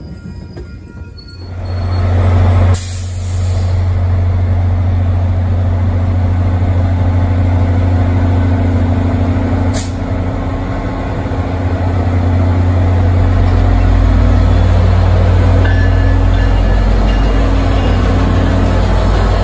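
MBTA commuter-rail diesel locomotive's engine running loudly and steadily, a deep drone that gets heavier after about thirteen seconds. It is broken by two brief sharp clicks, about three and ten seconds in.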